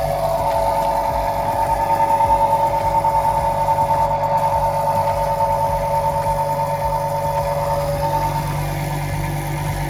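Dalton all-stainless circular vibrating sieve running: a steady mechanical hum with a buzzing tone over it, unchanging throughout.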